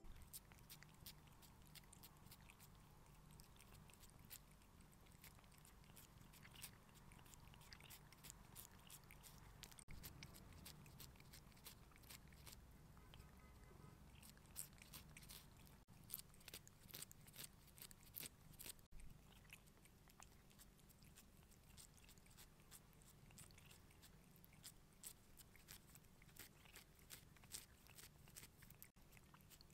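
A cat licking a lickable cream treat from a squeeze tube, close up: a faint, irregular run of quick licking clicks, several a second.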